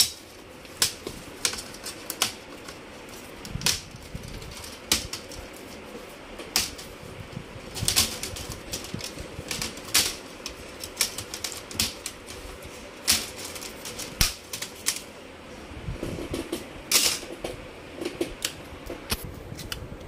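Plastic keyboard trim of a Dell Latitude E5420 laptop being pried off by hand: sharp plastic clicks and snaps of its clips coming loose, at irregular intervals and now and then two or three close together.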